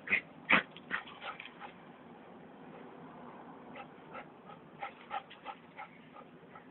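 A small dog giving short yips and whimpers in play, two sharper ones right at the start, then fainter ones scattered through.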